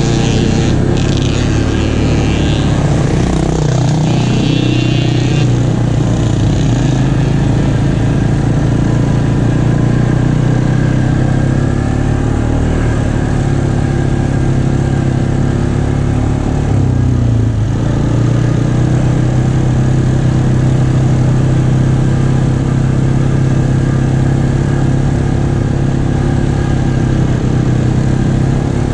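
ATV engine running steadily at riding speed, heard from on board, with wind and tyre noise on the dirt road. The engine note dips briefly and picks back up about two-thirds of the way through.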